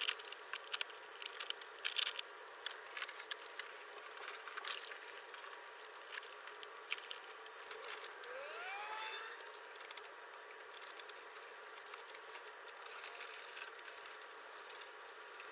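Faint, scratchy strokes of hand sanding dried primer with 400-grit sandpaper, mostly in the first half, and a brief rising whine about eight seconds in.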